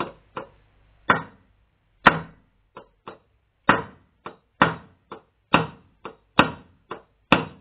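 A hammer tapping a steel punch held through a Triumph Stag carburettor body, driving out the main jet: sharp metallic knocks, a heavier blow about once a second with lighter taps between.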